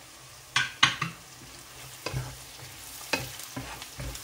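Sliced onions sizzling in hot oil in a nonstick frying pan, stirred with a wooden spatula that knocks and scrapes against the pan: a few sharp knocks about half a second in, then sizzling with repeated scrapes. The onions are being fried toward golden brown.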